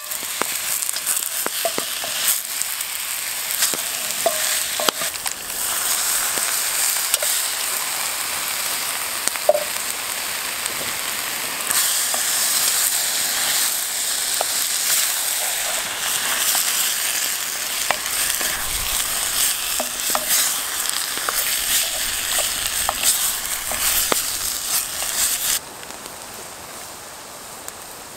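Meat, tomatoes and peppers sizzling in a cast-iron Dutch oven, with a wooden spoon stirring and knocking against the pot. The sizzle grows louder about halfway through and then drops away suddenly near the end, leaving a quieter hiss.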